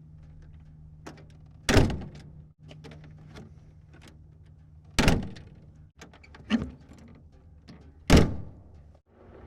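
1937 Plymouth car door opened and shut three times in separate takes. Each take has small latch clicks and rattles, then a loud, solid slam.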